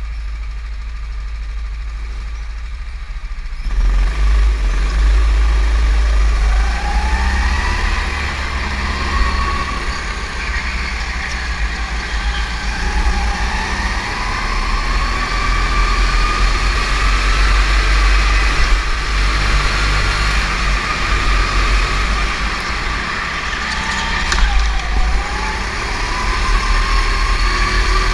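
Go-kart motor heard from on board, quieter at first and then picking up speed about four seconds in, its pitch rising and falling as the kart accelerates and slows through the corners, over a heavy low rumble.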